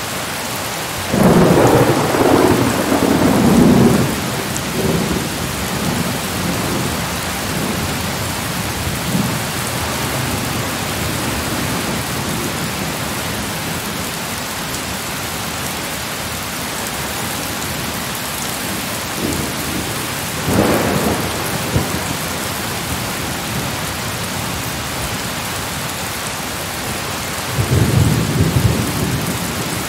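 Steady rain with rolls of thunder: a long rumble about a second in, a shorter one past the middle, and another near the end.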